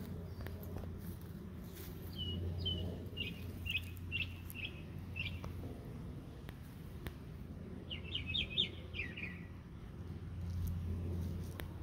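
A bird chirping in short, high, repeated notes: a run of about seven notes a couple of seconds in, then a quicker burst a little before the end, over a low steady rumble.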